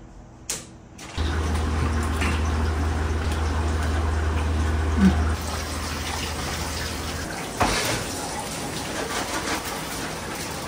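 Tap water running into a stainless steel sink while something is washed in a bowl, with a steady low hum under it for the first few seconds and a brief knock about two-thirds through.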